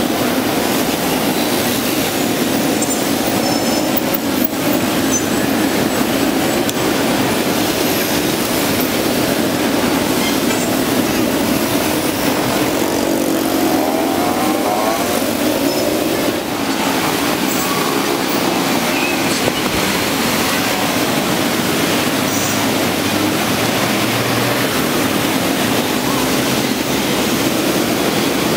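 Dense motorbike and scooter traffic: many small engines running together in a steady, continuous wash of noise.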